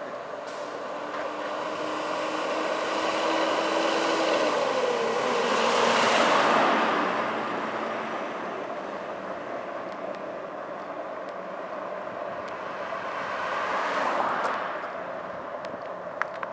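An oncoming vehicle passes the bicycle, swelling to its loudest about six seconds in, with its engine note dropping in pitch as it goes by. A second, quieter vehicle passes about fourteen seconds in, over steady wind and road noise from the moving bicycle.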